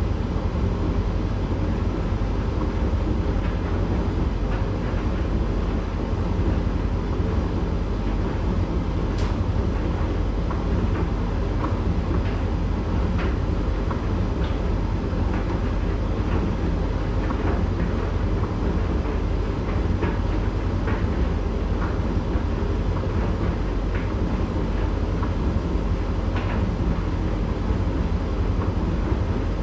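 Candy GrandO 9 kg tumble dryer running a drying cycle: a steady low rumble of the turning drum and fan, with scattered faint ticks.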